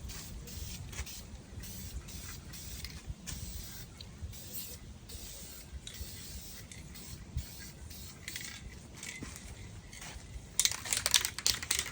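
Aerosol spray paint can hissing in many short, repeated bursts as a wheel rim is sprayed. Near the end a louder, rapid clattering sets in.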